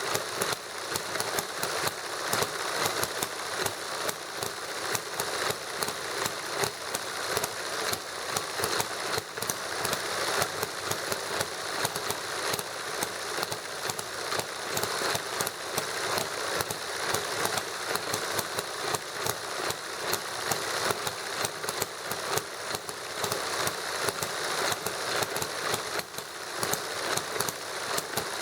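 Small model hit-and-miss gasoline engine running, firing in a fast, uneven string of sharp pops over a steady mechanical clatter.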